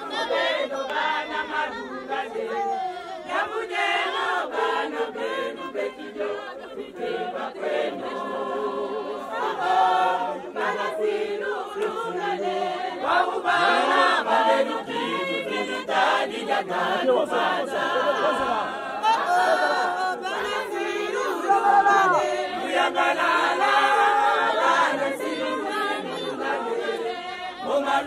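A large group of mostly women's voices singing a church song together, loud and continuous.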